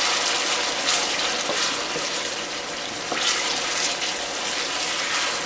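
Onions, peppers and tomatoes sizzling in hot oil in a pan as they are stirred around, with a steady frying hiss and brief louder scrapes of the stirring.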